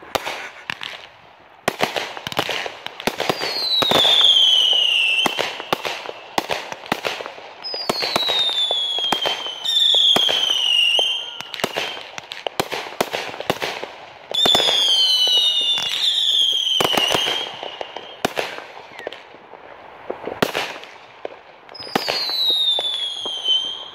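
Consumer aerial fireworks going off in quick succession: a run of sharp bangs and crackles, with several whistles that each slide down in pitch over about a second.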